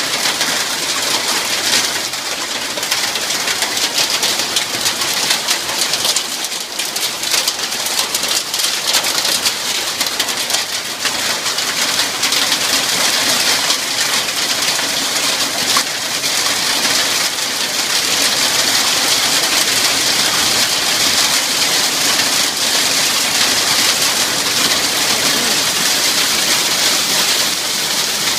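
Heavy rain mixed with hail pelting down: a steady dense hiss peppered with many sharp ticks of hailstones striking.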